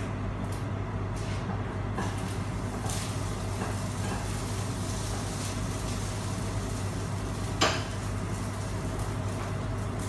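Steady mechanical hum of a kitchen appliance, with a few light clicks and one sharp clatter of cookware about seven and a half seconds in.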